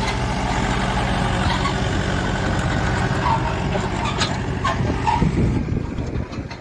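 Massey Ferguson tractor's diesel engine running steadily, with a few short clicks and rattles over it; it quietens about six seconds in.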